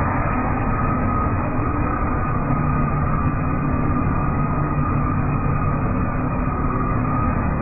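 Plastic cup production machines running: a steady low machine drone with a constant whine above it.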